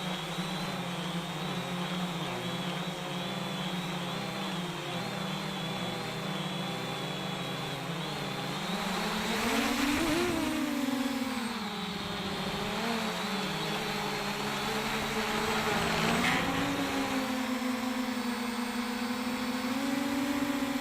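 JJRC X1 quadcopter's brushless motors and propellers humming, heard through the camera mounted on the drone. The pitch wavers with throttle, rises sharply about halfway through, dips, and climbs again near the end.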